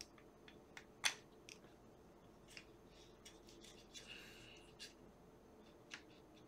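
Faint handling noise of a stacked circuit board assembly and LCD panel being picked up and turned in the hands: scattered small clicks and taps, a sharper click about a second in, and a brief rustle near the middle.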